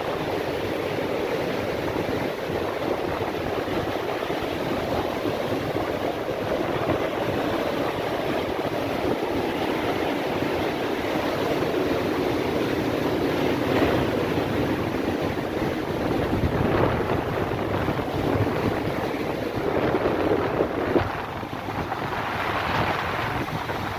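Sea surf washing and breaking on the shore, with wind buffeting the microphone; a few waves swell louder along the way.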